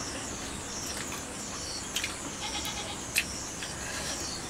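Rural background of insects chirping steadily, with a brief trembling animal bleat about two and a half seconds in. Two sharp clicks, the louder a little after three seconds.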